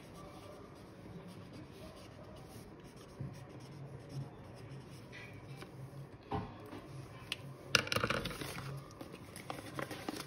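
Marker pen scratching on paper as a box is drawn and words are written, then a sharp click as the pen is capped about six seconds in. Paper rustling and crinkling follows as the folded sheet is picked up and handled, loudest about eight seconds in.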